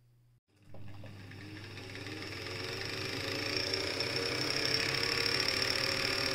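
Alfa 50 electric sewing machine running, its motor and needle mechanism speeding up over the first few seconds and then holding a steady pace.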